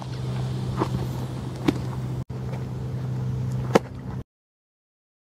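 Three sharp pops of a baseball smacking into a leather glove, the last one the loudest, over a steady low hum. The sound drops out for an instant a little past two seconds in and cuts off to silence about four seconds in.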